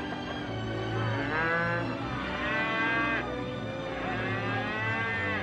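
Cattle mooing: three long, drawn-out calls, each rising then falling in pitch, over background music.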